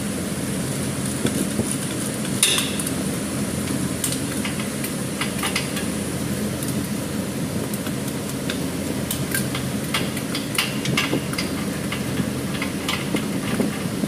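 Hand wrenches working the bolts of a 4-inch pipe flange: irregular metallic clicks and clinks of a ratchet wrench and spanner on the bolts, the sharpest about two and a half seconds in, over a steady low hum.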